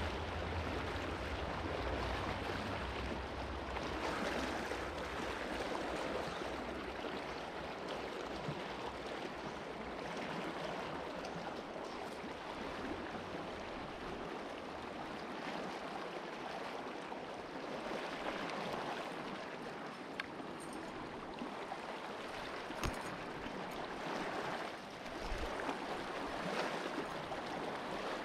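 Big Thompson River rushing steadily, with a few short clicks in the second half.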